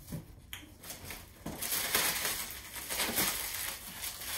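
Clear plastic bag crinkling and rustling as it is handled, an irregular crackle that is loudest from about a second and a half in.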